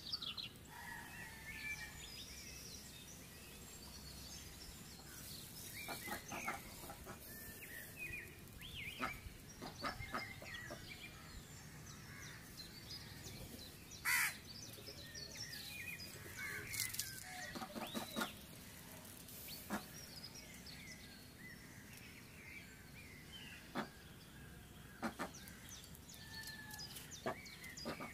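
Scattered bird chirps and short calls over faint outdoor background noise, with one brief sharp sound about halfway through.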